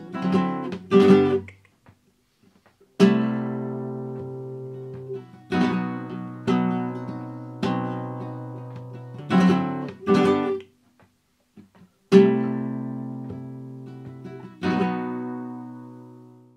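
Flamenco guitar strumming bulerías accompaniment chords. Sharp strummed chords are left to ring and fade, with two short silences, and the last chord dies away near the end.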